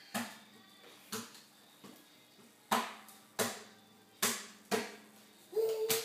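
A baby's open hand slapping a leather sofa cushion: about seven sharp smacks at uneven intervals, the loudest in the middle and at the end.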